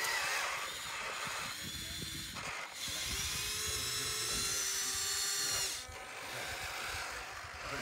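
Small electric motors of a radio-controlled model machine whining, with a strong high-pitched whine lasting about three seconds in the middle.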